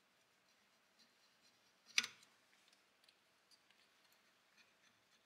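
Faint small ticks of a blade trimming the excess crankcase gasket flush with the case joint, with one sharp click about two seconds in.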